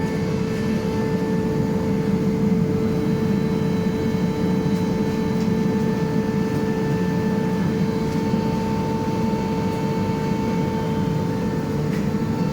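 An Atlas Copco GA 11 FF 11 kW rotary screw air compressor running steadily just after start-up. It makes an even hum with a steady whine as it compresses air into the receiver and builds pressure.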